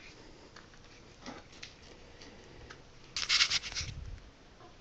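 Close handling noise: a few light clicks and taps, then a brief louder scraping rustle about three seconds in, as the small faucet cartridge parts and plumber's grease are handled.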